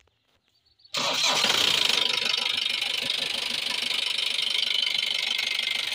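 Newly refitted starter motor cranking a Mahindra Bolero's diesel engine. It starts suddenly about a second in, runs steadily for about five seconds, then dies away at the end.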